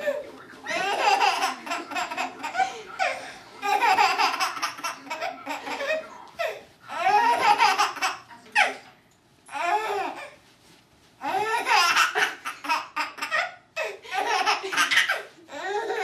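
A seven-and-a-half-month-old baby's belly laughs, coming in repeated bouts of quick, breathy, high-pitched "ha" pulses with short pauses for breath between bouts.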